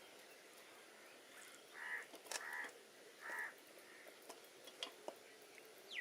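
A bird gives three short harsh calls, about two, two and a half and three and a half seconds in, over faint outdoor background.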